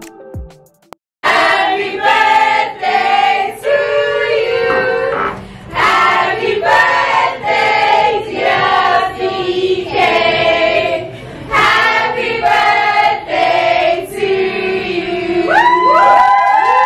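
A group of people singing together in phrases, starting suddenly about a second in and ending with several voices sliding up into a long held note.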